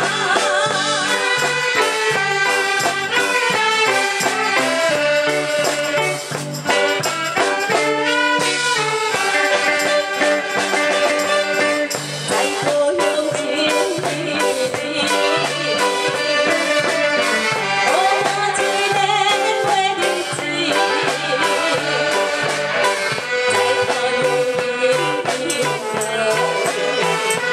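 Band music with a steady beat and held melody lines. The song is mostly instrumental here, with little or no singing.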